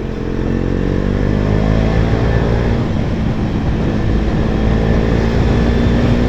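KTM Duke 250's single-cylinder engine running through an aftermarket exhaust while riding. Its note eases slightly lower over the first few seconds, then holds steady.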